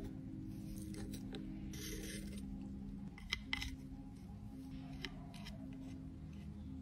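Metal blade scraping and picking at pressed makeup powder in a compact pan: scratchy scrapes and small clicks, with a longer scrape about two seconds in. Soft background music plays underneath.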